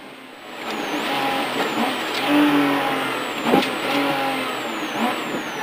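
Porsche Cayman S rally car's flat-six engine heard from inside the cabin, quiet for the first half second while braking for a tight first-gear right hairpin, then pulling hard out of it with several gear changes.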